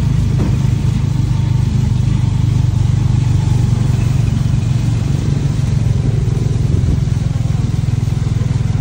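Motor vehicle engine running steadily with a low hum as it drives along a rain-soaked road, under a steady hiss of rain and wet tyres.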